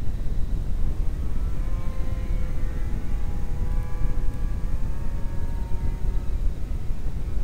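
Electric motor and propeller of a radio-controlled scale Cessna 182 model in flight, a whine whose pitch drifts slowly and steps up a little about five seconds in, over a steady low rumble.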